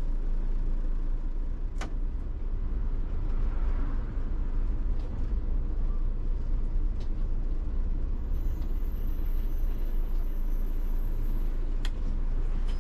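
Iveco Urbanway 12 city bus running, heard from inside the cab: a steady low engine and road rumble, with two short sharp clicks, one near the start and one near the end.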